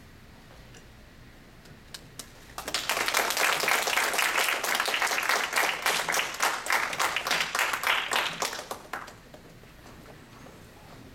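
Audience applauding: after a quiet moment and a couple of lone claps, the applause breaks out about two and a half seconds in and dies away about six seconds later.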